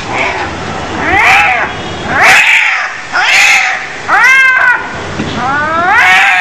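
A cat meowing repeatedly: five drawn-out calls about a second apart, each rising and then falling in pitch, the last one longer.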